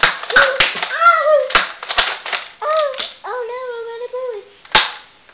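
A child's high-pitched wordless cries and squeals, several short ones and then one long drawn-out one, with sharp clicks and knocks in between.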